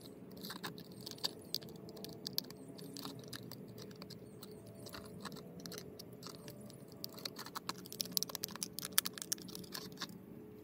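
A knife blade prying and scraping under the lid of a tin can to lever it open, after the seal has been broken by rubbing on concrete. It makes a run of small, irregular metallic clicks and scrapes that come thicker and louder near the end.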